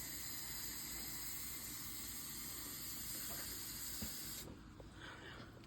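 Steady high-pitched hiss that cuts off suddenly about four and a half seconds in.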